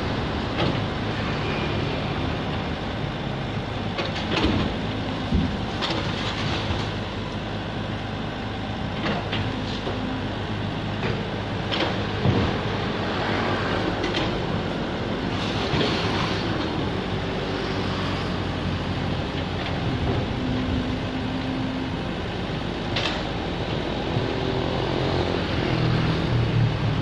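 Komatsu PC78UU excavator's diesel engine running steadily under working load, with sharp cracks and crashes every few seconds as its bucket breaks down a brick-and-plaster wall.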